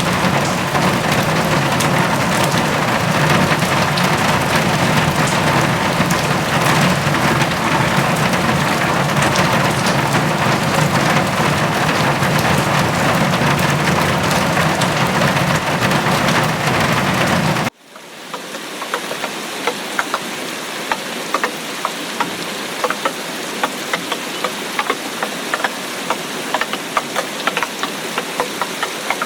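Heavy rain pouring, with a steady low rumble underneath. About two-thirds of the way through it cuts off suddenly to lighter rain, where single drops can be heard ticking separately.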